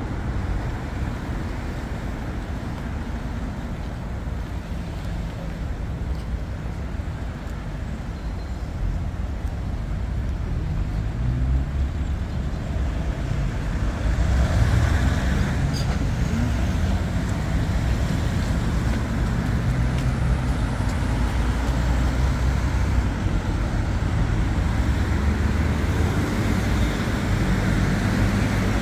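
Road traffic going by, a steady low rumble of engines and tyres that swells louder about halfway through as heavier or closer vehicles pass.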